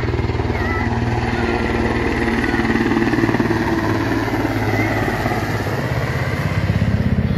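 Large four-bladed helicopter flying low overhead, its rotor beating fast and steady, the beat growing stronger near the end.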